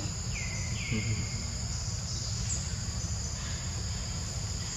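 Steady, high-pitched drone of forest insects, with two short chirps in the first second.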